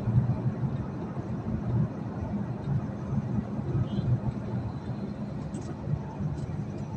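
City street traffic heard from a moving vehicle: a steady low rumble of engines and road noise, with a few faint, brief high-pitched sounds partway through.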